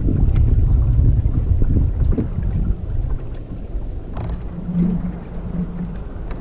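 Wind rumbling on the microphone of a fishing kayak on choppy water, with water against the hull; the rumble eases about two seconds in.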